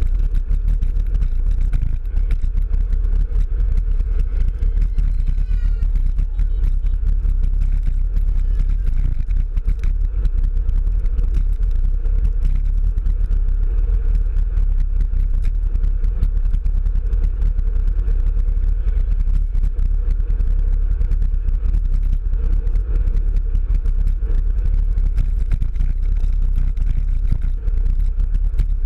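Wind buffeting the microphone of a handlebar-mounted camera on a road bike riding at about 22 km/h, a steady low rumble, with fine rattling and tyre noise from the bars and wheels on the asphalt.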